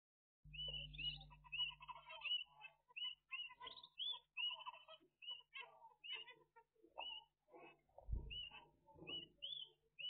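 Zebra finches calling: a quick run of short, repeated chirps with softer chatter between them. A low bump about eight seconds in.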